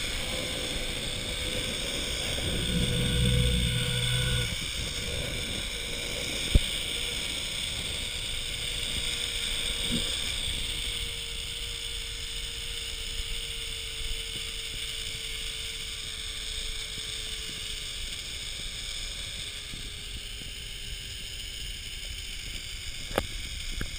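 Zipline trolley pulley whirring along the steel cable: a faint steady whine that sinks slowly in pitch as the ride slows and fades out near the end, over a steady hiss. Wind rumbles on the helmet camera's microphone in the first few seconds, and a couple of single sharp clicks stand out.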